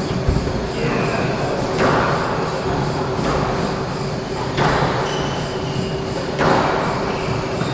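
Squash rally: the ball struck by rackets and hitting the court walls about every second and a half, each hit sharp and echoing around the enclosed court. Short high squeaks of sneakers on the wooden floor come between hits, over a steady hum.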